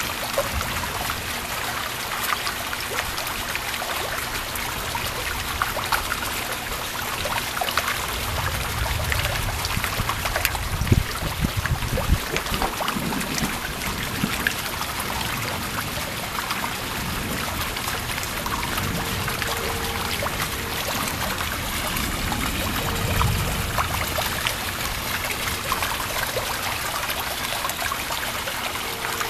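Rain falling steadily with water trickling and pouring, a continuous hiss. Low rumbles of distant thunder swell up about a third of the way in and again about three-quarters through.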